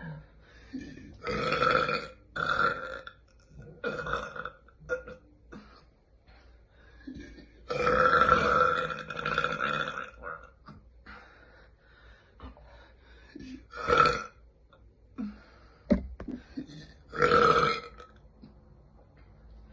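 A run of separate loud burps from young women, about half a dozen with pauses between them; one near the middle is drawn out for about two seconds, the others are short.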